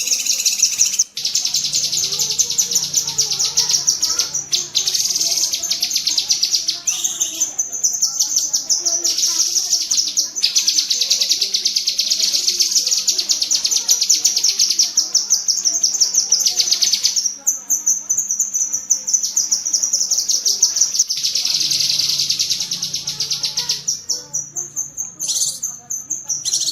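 Cucak kinoi singing its 'tembakan' song: long bursts of very rapid, dense, high-pitched chattering trills, each several seconds long, separated by short breaks.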